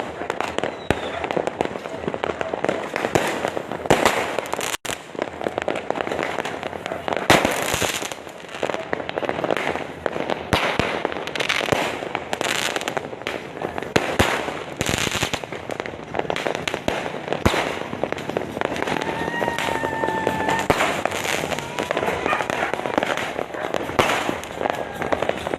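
A dense, continuous barrage of fireworks and firecrackers, many bangs and crackles overlapping without pause, with a brief whistling tone about twenty seconds in.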